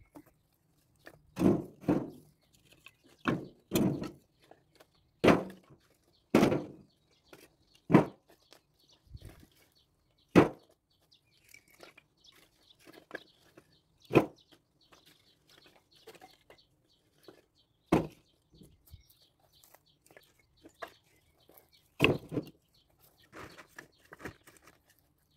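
Split firewood logs knocking against each other as they are set down on a woodpile: about a dozen hollow wooden thunks at uneven intervals, some in quick pairs.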